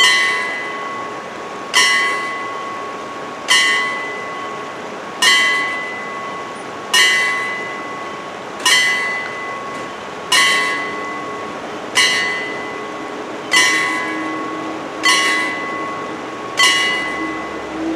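Level crossing warning bells striking about once every 1.7 seconds, each strike ringing out and fading before the next. From about ten seconds in, a steady low hum grows under the bells as the barrier arms lower.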